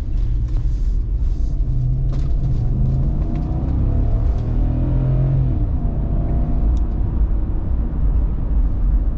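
SUV with a 4.7-litre VVT-i V8 driving along: a steady low engine and road rumble, the engine note rising and then easing back in pitch about halfway through as it speeds up and settles.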